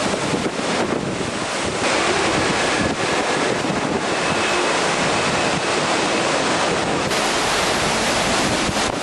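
Hurricane Katrina's eyewall winds blowing hard and buffeting the microphone in a loud, steady rush of wind noise.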